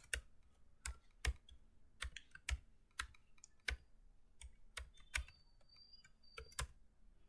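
Computer keyboard typing: irregular separate keystrokes, one to three a second, stopping just before the end.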